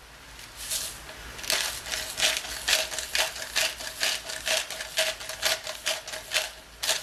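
Hand-twisted grinder cracking pink salt crystals: a quick run of gritty, ratcheting crunches, about three a second, starting about a second and a half in.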